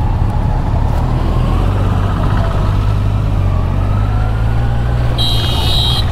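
Kawasaki Ninja 1000's inline-four engine running steadily while riding at low speed. A brief shrill, high-pitched sound cuts in about five seconds in.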